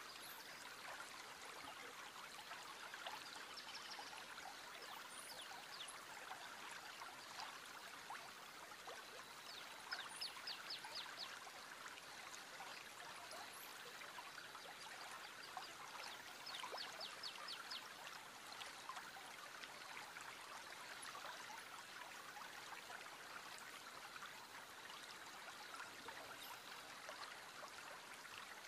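Faint, steady babble of the Loneelva river running over stones. Twice, about ten and sixteen seconds in, a short, rapid high trill sounds over it.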